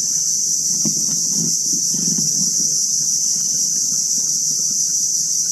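Insects in the mangroves making a steady high-pitched buzz that does not change.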